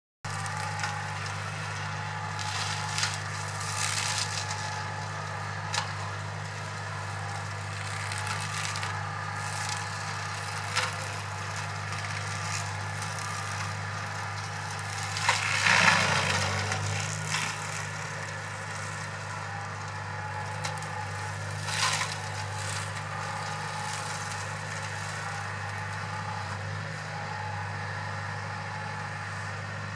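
Tractor-mounted boom-arm flail hedge cutter at work: the tractor engine and spinning flail rotor give a steady drone, broken by intermittent cracks and crackles as the flails smash hedge branches. The loudest burst of crackling comes about halfway through.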